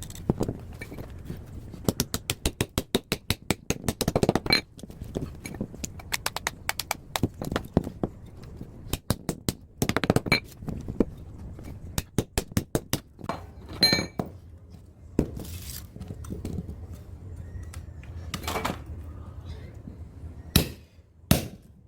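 Sharp metallic clinks and knocks from parts of a scrapped top-loading washing machine being worked apart, with two fast runs of strikes and a few scraping sounds between them.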